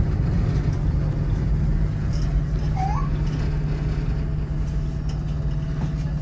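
Tyne and Wear Metrocar (Class 599/994) running on the rails, heard from inside the front of the car: a steady low traction hum over wheel-and-track rumble, with a brief rising squeak about three seconds in.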